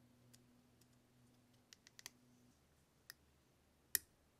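Small plastic parts of a 1/24 scale car model kit clicking against each other as they are handled and fitted together on the chassis: scattered faint clicks, a quick cluster about two seconds in, and one sharper click near the end.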